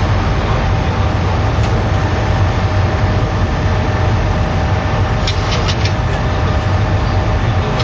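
Steady cabin noise inside a Boeing 737 airliner in flight: the rumble of the engines and rushing air, with a few faint steady whining tones. A short run of clicks comes about five seconds in.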